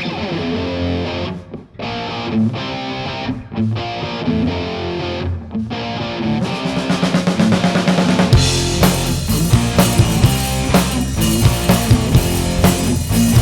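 Live rock band playing an instrumental intro: a melodic line that stops briefly three times, then a drum build, and the full band with drum kit crashing in a little past eight seconds.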